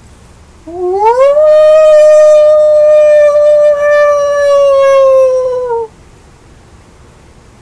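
A man howling like a wolf: one long howl that swoops up at the start, holds steady, then sags and stops after about five seconds.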